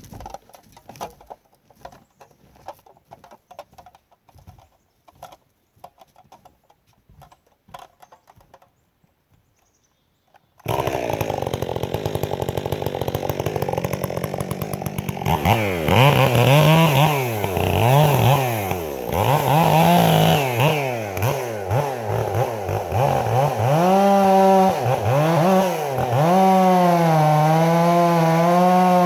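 Stihl MS 400 C chainsaw, fitted with a Bark Box muffler, comes in suddenly and loudly after about ten seconds of faint scattered clicks. It revs up and down several times, then holds at high revs with the pitch wavering and dipping, as when the chain is cutting into the pine.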